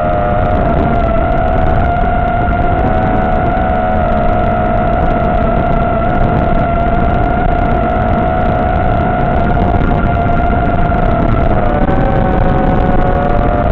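Motor and propeller whine of an FPV aircraft in flight: a steady whine whose pitch wavers slightly, splitting briefly into two close tones near the end, over a steady rush of noise.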